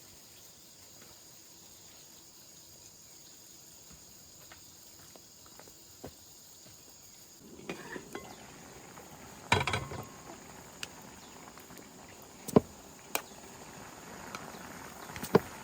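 Steady insect chirring in the background. From about halfway, rustling and a few sharp knocks, the loudest about two-thirds of the way through.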